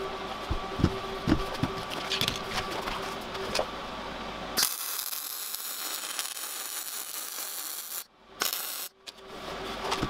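Metal roller chain clicking and rattling as it is handled, over a steady hum. About halfway through, a welding arc hisses steadily for roughly three seconds and then stops, and the chain clicks start again near the end.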